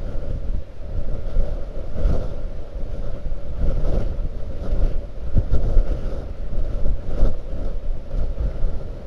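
Blizzard wind buffeting the microphone: a loud, rough low rumble that swells and eases in gusts.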